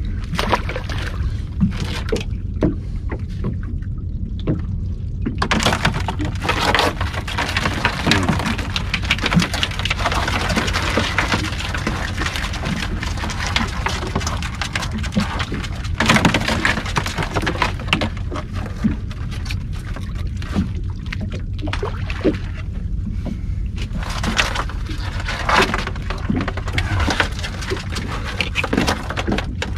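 Water and wind noise around a small open boat: a steady low rumble, with a denser wash of noise through the middle, and scattered knocks and rattles as a crab pot and bait are handled on the deck.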